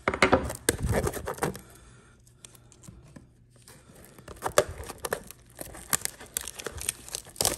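Cardboard trading-card blaster box being handled and its sealed top flap picked and torn open by hand, with crinkling and small sharp tearing snaps. A burst of handling comes first, then a lull, then the picking and tearing from about halfway.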